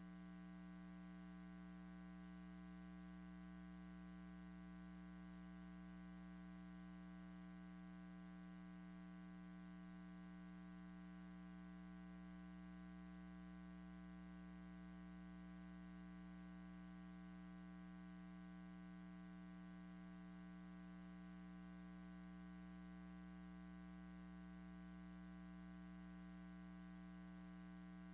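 Near silence with a steady low electrical hum that never changes.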